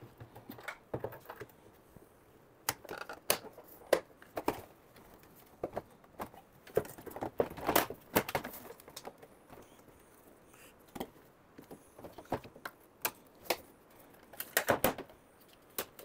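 Scattered plastic clicks, snaps and knocks of a split air conditioner indoor unit's front cover being pried open with a screwdriver and handled.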